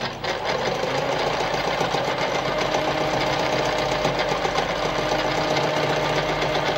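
Veritas Automatic 8014/3 semi-industrial sewing machine starting up and running at a steady speed, stitching a decorative pattern stitch. A constant motor hum lies under a fast, even needle clatter.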